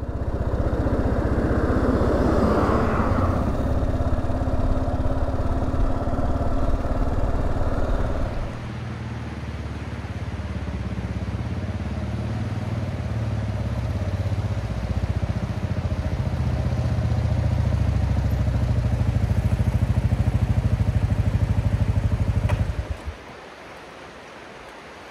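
Kawasaki KLR650's single-cylinder engine running on the move, with a bus passing in the first few seconds. About eight seconds in the engine note drops lower and quieter, then builds again until the engine is shut off near the end, leaving the steady rush of a river.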